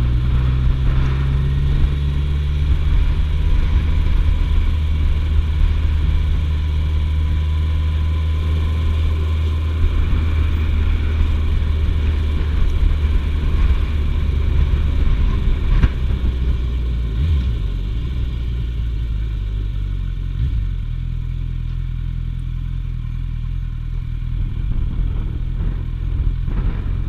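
Suzuki GSF1250S Bandit's inline-four engine running at a steady cruise on a street ride. From about 20 seconds in it drops to a quieter, lower note as the bike slows.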